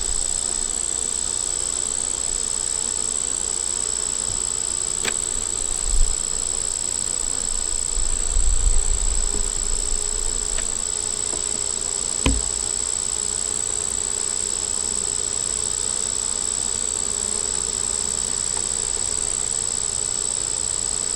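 Honey bees buzzing around an opened hive, under a steady high-pitched insect trill. A few low bumps come near the middle, and one sharp click.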